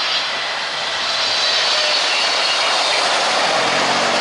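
Boeing 777-300ER's GE90 turbofan engines heard from beside the runway as the airliner flares and touches down. The jet noise is steady, with a high whine over it.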